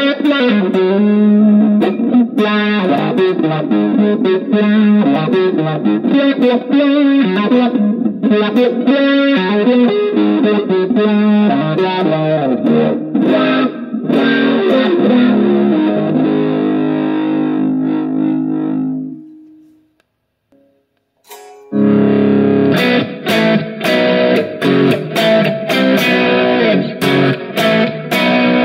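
Electric guitar played through a Valeton GP200 multi-effects processor into a Cort CM15R practice amp. A run of melodic notes rings out and fades about two-thirds of the way through. After a second or two of silence, choppy rhythmic chords begin.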